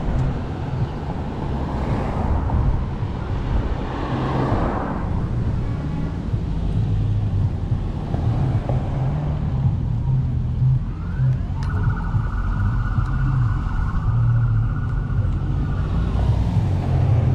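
Wind buffeting the microphone of a moving electric scooter, a heavy fluttering rumble, with road traffic noise that swells and fades early on. In the second half a steady high tone comes in suddenly and holds for about four seconds.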